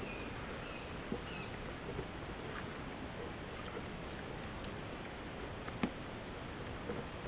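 North American river otters moving about on a wooden boardwalk: a few faint taps and knocks, the sharpest about six seconds in, over a steady hiss.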